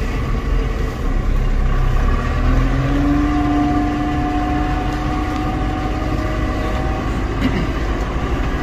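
Loader tractor's diesel engine running, heard from inside the cab, with a low steady rumble. About two and a half seconds in a higher tone climbs a little and holds, then fades out near the end.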